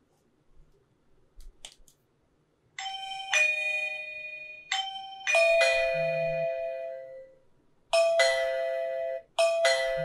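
Electronic doorbell chime playing a two-note ding-dong about four times, starting about three seconds in, each note ringing out and fading.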